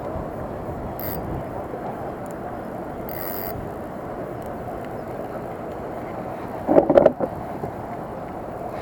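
Steady outdoor background noise, with a brief loud bump and rustle about seven seconds in.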